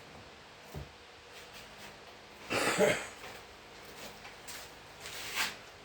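A man coughing, once loudly about two and a half seconds in and again more lightly near the end, with a faint knock in the first second.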